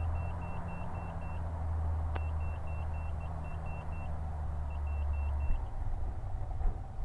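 Light aircraft's piston engine running at taxi power, heard as a steady low drone through the cockpit intercom. The drone stops about five and a half seconds in. Over it, groups of short high beeps repeat about five times a second.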